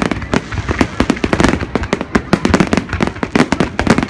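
Fireworks display going off in a rapid, continuous barrage of bangs and crackles, many reports a second.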